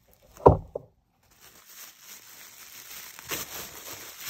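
A loud thump about half a second in, then faint crinkling and rustling of a package being handled and opened.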